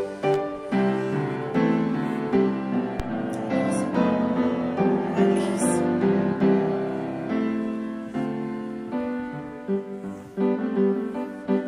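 Background piano music, a melody over held chords.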